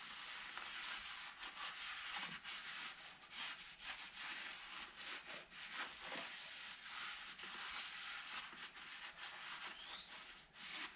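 Paper towel rubbing over a metal plate of a clutch assembly, wiping it clean in many quick back-and-forth strokes.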